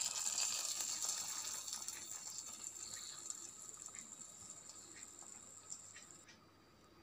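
Hot coconut-oil tempering of mustard seeds, shallots, curry leaves and dried red chillies sizzling and crackling on the surface of a fish curry just after being poured in. The hiss fades away steadily.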